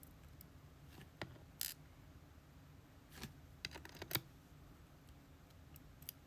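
Small metal clicks and a brief scrape from handling the parts of a disassembled lock cylinder: pins, springs and the plug being moved about. Scattered single clicks, with a quick run of clicks near the middle.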